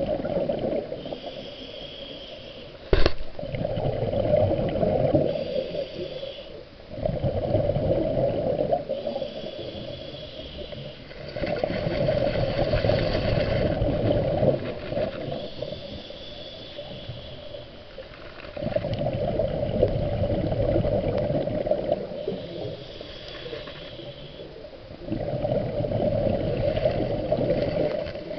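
Scuba diver breathing through a regulator underwater: a hiss on each inhalation alternates with loud bursts of exhaled bubbles, five times over, with one sharp knock about three seconds in.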